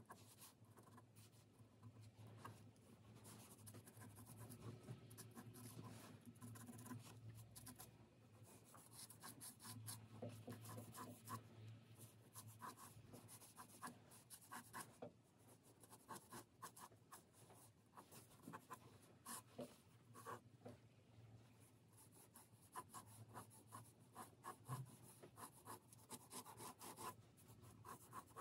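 Faint scratching of a mechanical pencil's graphite lead on paper, in many short, irregular strokes as lines are sketched.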